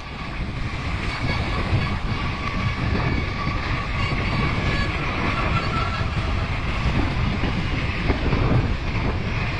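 Mountain bike descending fast on hard-packed snow: a steady rumbling rush of wind on the microphone and tyre noise, with the bike rattling.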